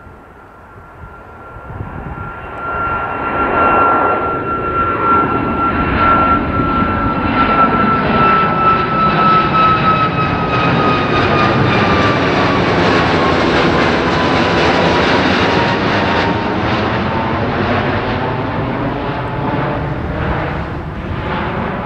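Boeing 737 MAX 8's CFM LEAP-1B turbofan engines at climb power as the airliner climbs out and passes overhead. The jet roar swells over the first few seconds and holds loud. A whining fan tone in it slowly drops in pitch as the aircraft goes by, and the roar begins to ease near the end.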